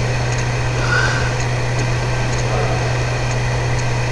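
Steady low hum over an even hiss: the background noise of the lecture room's recording, with no one speaking.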